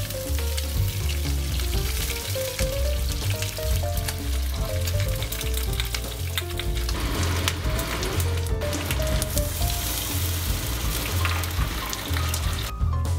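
Whole Wuchang bream pan-frying in hot oil in a wok, sizzling steadily as a spatula turns it and green onion is dropped in. A melodic soundtrack with a pulsing bass plays underneath.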